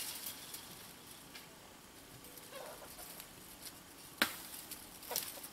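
Chickens clucking faintly, with a sharp click about four seconds in and another about a second later.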